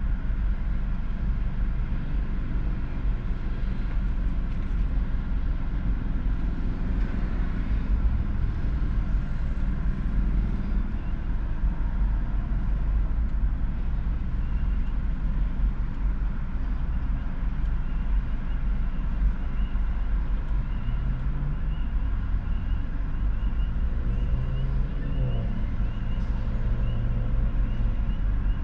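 Steady low rumble of vehicle engines and passing traffic, heard from inside a car. From about halfway through, a faint high beeping repeats at an even pace.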